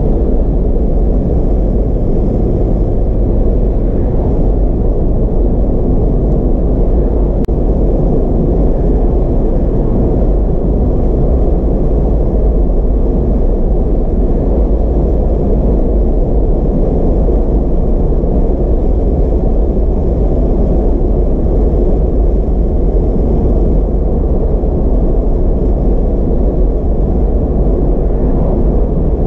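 Mazda MX-5 RF cruising on an open road: a steady, deep mix of road and engine noise that stays even throughout.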